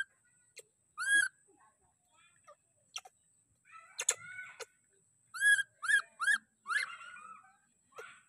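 Baby macaque calling: short, high-pitched squeaky calls, each rising then falling in pitch. One comes about a second in and four or five follow close together after about five seconds, with a few light clicks between them and a faint steady high tone underneath.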